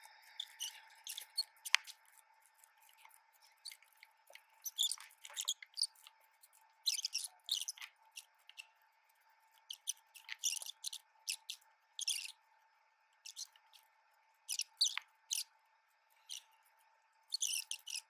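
Irregular short, high-pitched rustles and crinkles of album pages and packaging being handled, over a faint steady whine.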